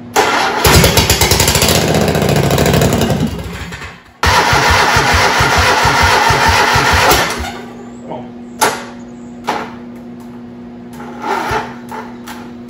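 Air-cooled 22.5 hp Kohler Command V-twin engine on a test stand being started for the first time: it runs loud and pulsing for about three seconds and dies away, then starts again and runs for about three more seconds before stopping. A few sharp clicks follow.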